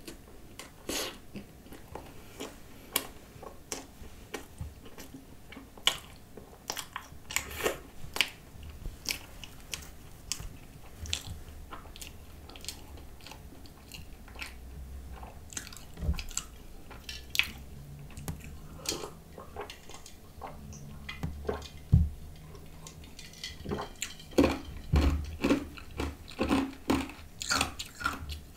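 Close-miked chewing of a mouthful of croissant with whipped cream and coconut spread: wet mouth clicks and smacks at an irregular pace, coming thicker and louder in the last few seconds.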